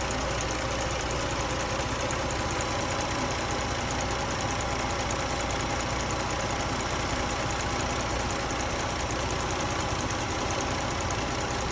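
2015 Jeep Cherokee 3.2L V6 idling steadily, an engine with an intermittent misfire that comes only every 20 to 30 seconds.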